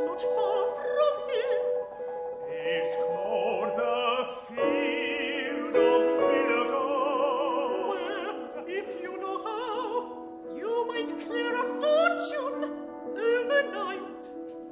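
Operatic voices singing with vibrato, several lines overlapping on held notes, over piano accompaniment.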